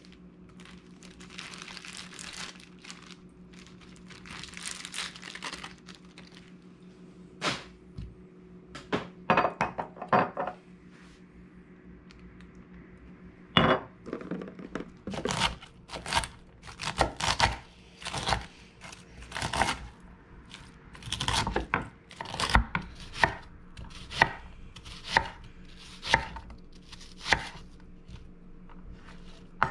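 Chef's knife slicing an onion on a wooden cutting board: sharp knocks of the blade on the board, about one a second through the second half. Before that, quieter rustling and a few knocks as a plastic zip-top bag of marinating fish is handled, over a faint steady hum.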